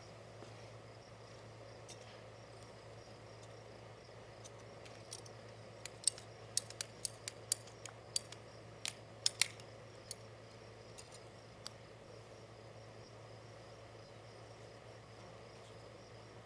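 About ten sharp clicks or snips in quick succession in the middle, over a steady, evenly pulsing high insect chirring.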